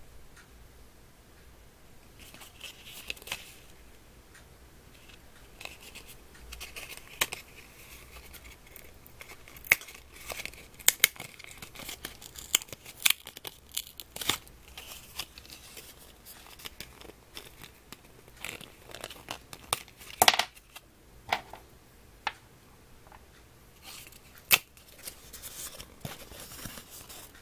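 Small paperboard perfume sample carton being opened and its folded printed card handled: scattered rustling and crinkling with many sharp paper snaps and clicks, the loudest about ten and twenty seconds in.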